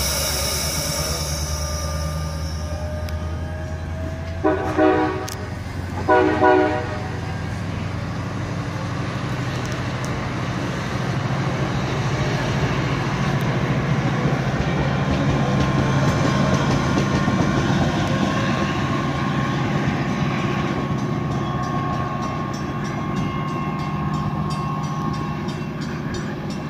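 Metra MP36PH-3S diesel locomotive, with its 16-cylinder EMD 645 engine, pulling a bilevel commuter train out of the station. The engine runs steadily under load, the horn gives two short blasts about five and six seconds in, and the rolling coaches clatter past, loudest midway, then ease off as the train draws away.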